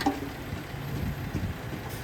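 Heavy construction-machine diesel engine running steadily at a low rumble, with a short knock at the very start.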